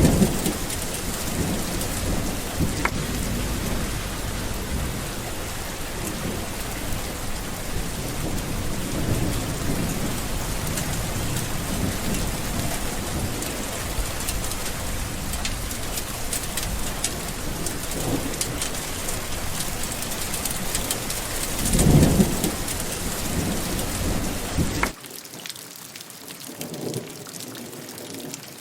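Steady heavy rain with low rolls of thunder, the loudest rumble about three-quarters of the way through. Near the end the sound drops suddenly to lighter, quieter rain.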